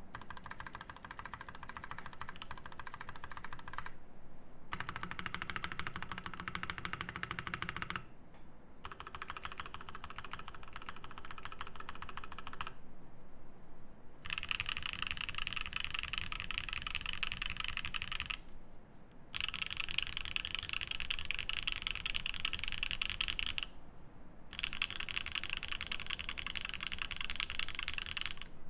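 Fast continuous typing on a Matrix Noah mechanical keyboard with lubed H1 switches, aluminium plate and DCS keycaps. Keystrokes clatter in runs of a few seconds, broken by four or five brief pauses.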